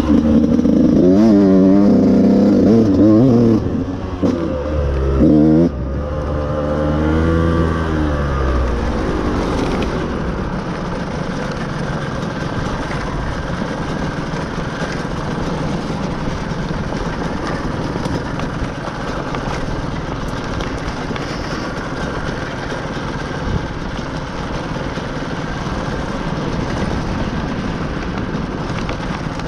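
Dirt bike engine revving hard and rising and falling in pitch for the first few seconds, with more revs around five to eight seconds, then running more steadily and a little quieter. The rider says the engine is about ready for a new top end.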